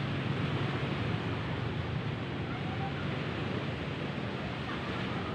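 Steady rushing outdoor noise of wind and surf by the sea, with no distinct events.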